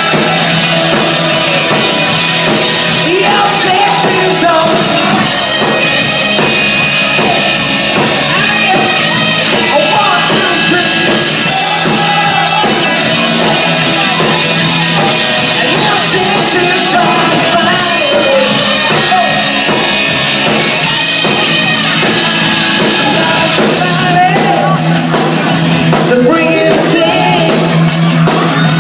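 Live rock band playing loud: electric guitars, drum kit and a singer, with steady high cymbal strokes in the last few seconds.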